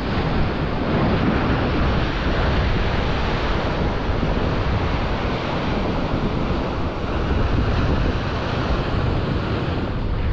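Surf breaking and washing over a rocky shore, a steady rush with wind buffeting the microphone.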